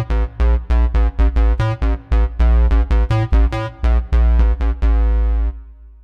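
Cherry Audio Dreamsynth software synthesizer playing a fast staccato sequence of short, bright notes over a heavy bass. It stops about five and a half seconds in and the last note dies away.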